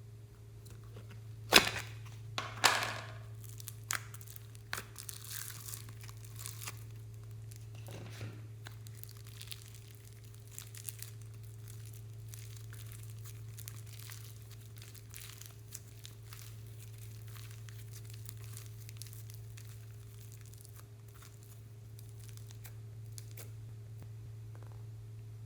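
Slime being squeezed and stretched by hand, giving sticky crackling and popping. There are two louder snaps about one and a half and two and a half seconds in, then fine crackles, all over a steady low hum.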